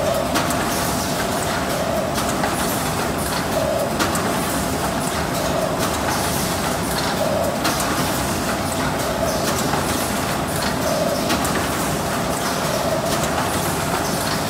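HM-ZD350D automatic rigid box making machine running: a steady mechanical din with a held tone that swells about every two seconds, and a few sharp clicks.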